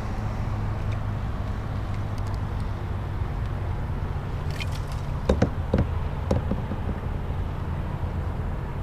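Steady low hum of a running engine, with a few sharp clicks and knocks about five to six and a half seconds in.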